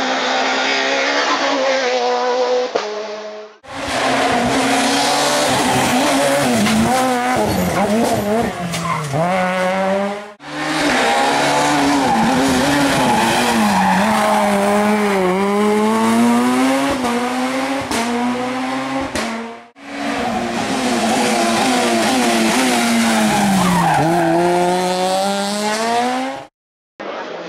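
Rally cars passing one after another in several cut-together clips, Peugeot 207 S2000s among them. In each pass the engine note is high, drops in pitch as the car slows for the bend, then climbs again as it accelerates away.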